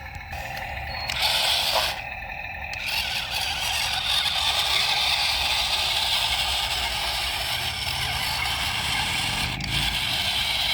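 Toy remote-control excavator working, a steady scraping, whirring noise that starts about a second in and holds until near the end.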